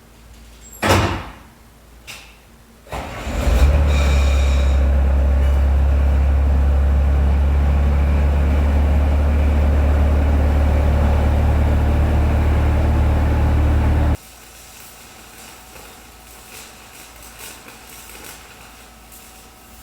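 A thump about a second in, then a skid steer engine cranks and catches at about three seconds and runs at a steady idle, just after its batteries have been reconnected. The engine sound cuts off suddenly about eleven seconds later, leaving faint clicks.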